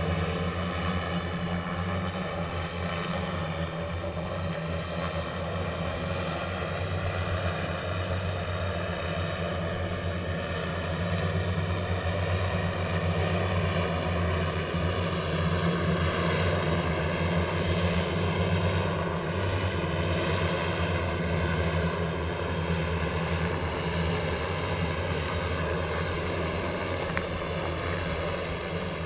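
Multirotor passenger drone's brushless electric motors and propellers running with a steady hum, the pitch wavering slightly.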